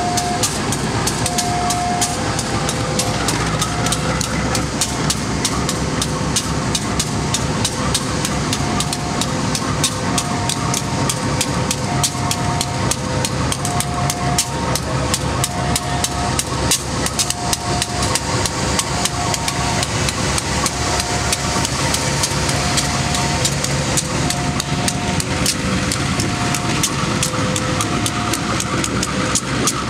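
Railway level-crossing warning alarm sounding: a higher and a lower tone alternate, each under a second, with rapid sharp ticking about four times a second throughout. The low running of a diesel locomotive sits underneath.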